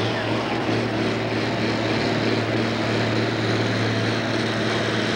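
Green John Deere farm-stock pulling tractor's diesel engine running flat out under load as it drags a weight-transfer sled, a loud steady drone that holds one pitch.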